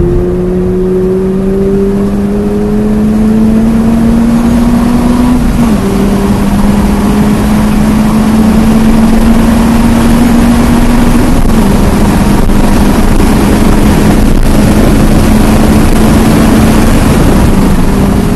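A 2022 Subaru BRZ's 2.4-litre flat-four engine, breathing through an aftermarket Touring86 exhaust, pulls hard at full throttle. Its pitch climbs through the gears, with two upshifts about five and a half and eleven and a half seconds in. After the second shift it holds a nearly steady note at speed, while road and wind noise grow with speed.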